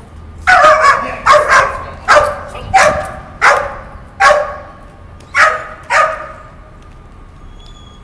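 Young Dutch Shepherd puppy barking: eight loud, sharp barks about one every 0.7 s, stopping about six seconds in. She is held back on a leash while a person runs away from her in a runaway drill.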